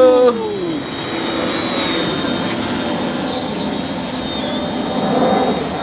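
Gaui 330X quadcopter flying overhead, its electric motors and propellers giving a steady whirring hum with a thin high whine.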